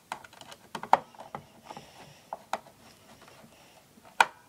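A screwdriver clicking and tapping against the hard plastic of a Roomba 650's underside as screws are driven back in. The clicks come irregularly, with the loudest about a second in and another sharp one near the end.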